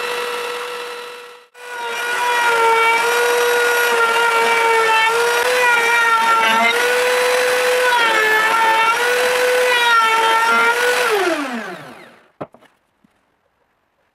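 A belt sander runs briefly; after a cut, a router table with a bearing-guided roundover bit runs with a steady high hum, its pitch sagging slightly each time the wood is fed into the bit. About eleven seconds in it is switched off and winds down in pitch, and a single knock follows.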